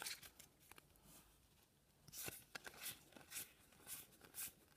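Faint paper flicks and slides of Pokémon trading cards being moved one behind another in the hands, with a quiet gap at first and then a short flick about every half second.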